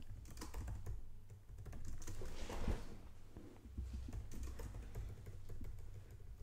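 Typing on a computer keyboard: a run of irregular keystrokes and key clicks, with a louder cluster about two and a half seconds in.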